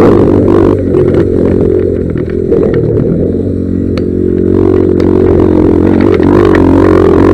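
1982 Honda XR200R's four-stroke single-cylinder engine on an off-road ride: it drops to a softer, lower-revving note for a few seconds with a couple of sharp knocks and clatter, then picks up and revs with a wavering pitch near the end.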